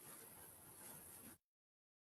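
Near silence: faint room hiss that cuts off to complete silence about one and a half seconds in.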